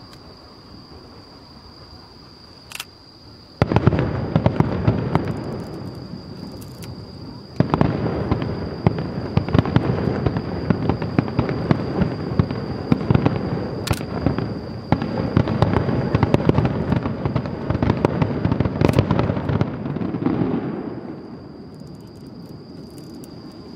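Aerial fireworks shells bursting in a dense barrage of booms and crackle. It starts suddenly about three and a half seconds in, swells again about eight seconds in, and dies away after about twenty seconds.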